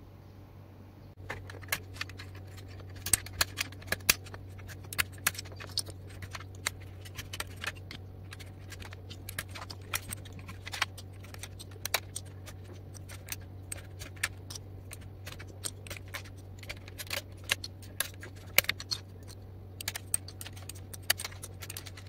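Plastic keycaps being pulled one after another off the blue switches of a Digital Alliance Meca Air mechanical keyboard: a run of irregular sharp clicks and snaps, starting about a second in.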